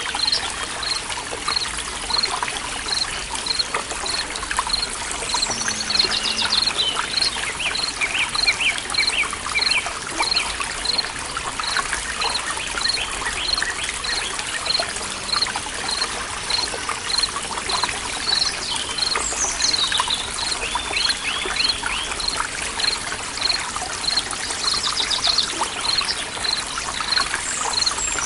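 Forest stream water trickling steadily, with birds singing. A short high chirp repeats about one and a half times a second throughout, and bursts of quick trilled song come in several times.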